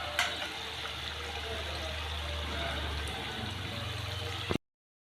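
A steady, water-like hiss over a low hum, with a sharp click just after the start; it cuts off abruptly after about four and a half seconds.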